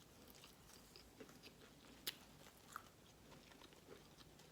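Faint chewing and mouth sounds of a person eating fried mullet, with scattered soft clicks and a couple of sharper ones.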